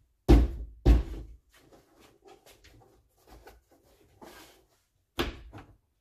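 Two sharp thumps about half a second apart, then light clicks and knocks and another thump near the end: the rear hatch's interior trim panel being pressed and struck into place to snap its plastic clips in.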